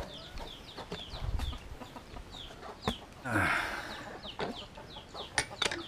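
Backyard chickens clucking, with short, high, falling chirps repeating several times a second and one louder call about three seconds in. A few sharp knocks are heard too.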